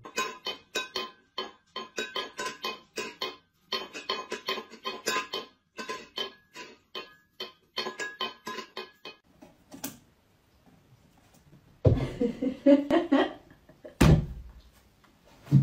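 A quick run of short, pitched clinking blips from a tablet game, about four or five a second, stopping about ten seconds in. After a pause comes a brief vocal sound, and a sharp knock near the end.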